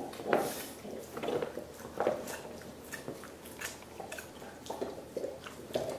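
Dogs gnawing and licking soup bones: irregular wet slurping and smacking chews, several a second, with sharp clicks of teeth on bone.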